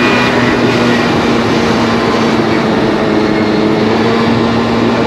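Early Honda Live Dio ZX's 49cc two-stroke single running at a steady speed under way, with its exhaust note holding an even pitch and wind noise. The rider concludes that the noise is from the muffler, not a worn bearing.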